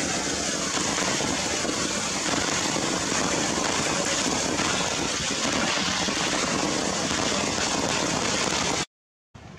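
Heavy rain falling steadily in a dense, even hiss, cutting off suddenly near the end.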